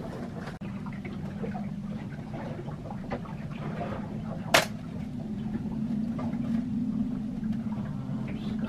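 Plastic casing of a small flat-screen TV clicking as it is handled and prised at, with a sharp snap about four and a half seconds in, over a steady low hum.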